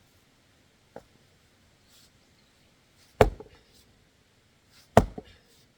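Axe blows on a firewood log: a light knock about a second in, then two sharp, heavy chops about two seconds apart, each followed by a brief rattle. The log is tough and won't split easily.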